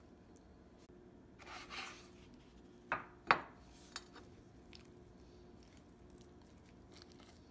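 A short rustling scrape, then two sharp knocks of a Pyrex glass baking dish set down on a kitchen counter, the second louder and briefly ringing, and a lighter tap a moment later.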